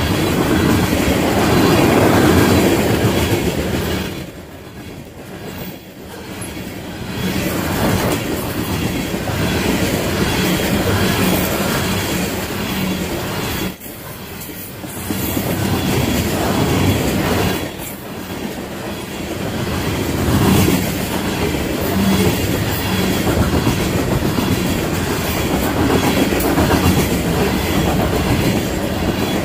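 Union Pacific coal train's cars rolling past close by: a steady loud rumble of steel wheels with clickety-clack over the rail joints. It drops off briefly about four seconds in.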